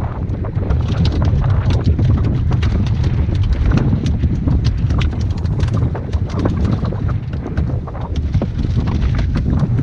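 Strong wind buffeting the microphone, with a rapid, irregular clicking and tapping layered over it.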